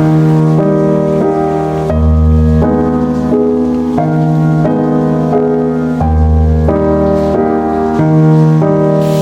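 Background music: a gentle piano tune with steady chord changes and a repeating bass line.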